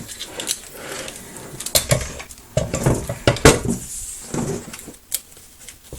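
Clattering knocks and scraping as a Singer Featherweight sewing machine is handled and bumps against a board, with masking tape being pulled off it.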